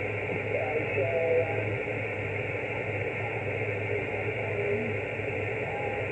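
Yaesu FT-901DM transceiver receiving on the 10-metre sideband: a steady hiss of band noise over a low hum, with a weak single-sideband voice wavering faintly in the noise in the first second or two. The distant station is too weak to copy.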